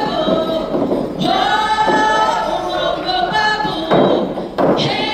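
Konyak Naga troupe chanting together as a group, a sustained, wavering song sung to the log-drum pulling, with a couple of sudden loud thuds near the end.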